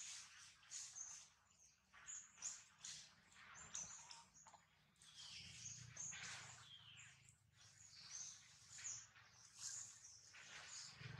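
Faint high-pitched chirping calls, many short notes repeating throughout, some gliding down in pitch, with scattered light rustling.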